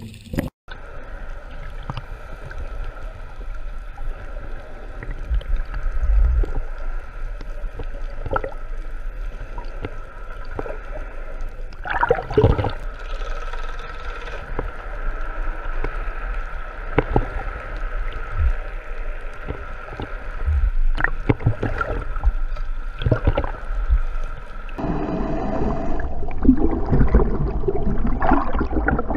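Muffled underwater sound picked up through a camera's waterproof housing: a steady rush of water with bubbling and scattered knocks.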